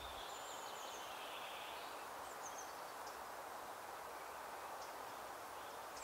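Steady outdoor background hiss with a few faint, brief, high bird chirps.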